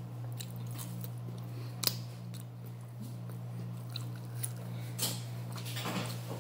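Close-up mouth sounds of a person chewing grilled meat eaten with the fingers: scattered wet smacks and small clicks, one sharper click about two seconds in. A steady low hum runs underneath.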